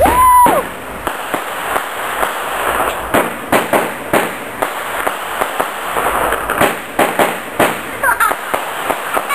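Consumer fireworks hissing as they spray sparks, with a string of sharp, irregular pops and cracks from about three seconds in.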